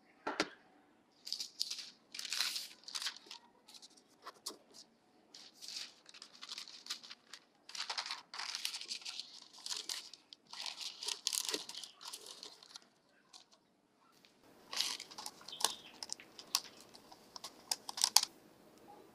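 Baking paper crinkling and rustling in irregular bursts as it is creased and pressed into a metal loaf tin, with a short lull about two-thirds of the way through.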